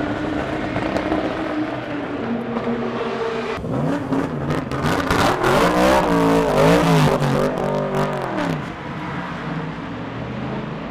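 Race car engine running at a steady idle, then revved up and down several times through the middle, before settling back to a lower steady note near the end.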